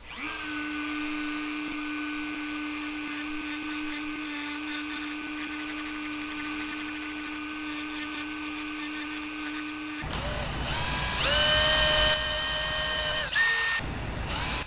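Dremel rotary tool with a sanding drum running at a steady whine while it sands a hardened super glue and baking soda lure body. About ten seconds in it gives way to a cordless drill drilling into the lure: it spins up, runs for about two seconds, then gives one short burst.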